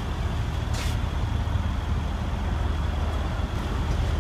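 Mercedes-Benz CLS63 AMG's twin-turbo V8 idling with a steady low hum. There is a single sharp click about a second in.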